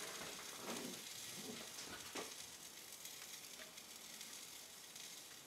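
Grouper steaks sizzling on the grate of an indoor smokeless grill: a steady high hiss with scattered small crackles, most of them in the first couple of seconds, easing off slightly.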